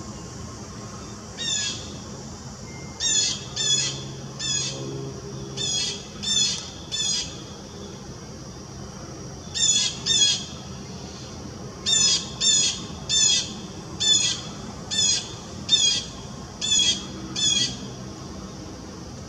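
A bird calling: about seventeen short, high calls, coming singly and in quick runs of two to five, over a low steady background hum.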